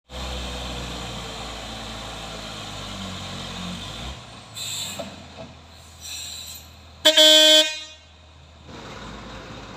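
Heavy Hino container truck's diesel engine pulling at low revs, a steady low rumble that drops away about four seconds in. About seven seconds in a vehicle horn sounds loudly for under a second.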